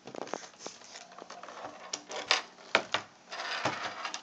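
Hands handling a bare laptop LCD panel and the plastic screen lid as the panel is fitted back into place: scattered clicks and rubbing, with several sharp knocks and a short stretch of rustling in the second half.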